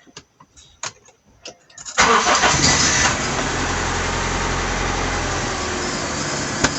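Honda Civic four-cylinder engine starting: a few light clicks, then about two seconds in the engine catches suddenly, is briefly louder, and settles into a steady idle.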